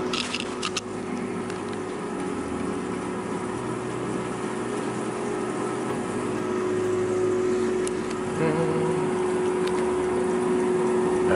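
Secura air fryer running: its fan whirs steadily over a constant hum, with a few light clicks in the first second.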